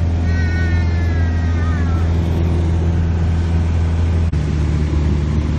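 Steady, loud drone of a Piper light aircraft's piston engine and propeller, heard from inside the cabin in flight. A high, falling voice-like sound rides over it in the first two seconds, and the drone's pitch shifts abruptly a little after four seconds in.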